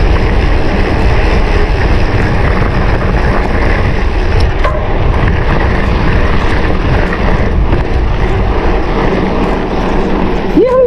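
Wind buffeting an action camera's microphone on a moving mountain bike, a loud steady rush mixed with the rumble of the ride.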